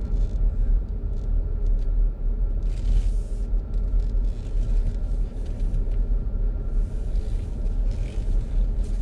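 Car driving slowly, heard from inside the cabin: a steady low rumble of engine and tyres on the road. Short patches of hiss rise over it about three seconds in and again near the end.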